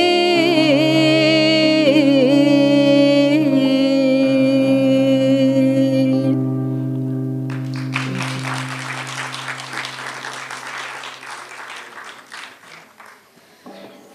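A woman's voice holds a long final sung note with vibrato over sustained acoustic guitar chords, ending about six seconds in. About two seconds later an audience starts applauding, and the applause dies away gradually.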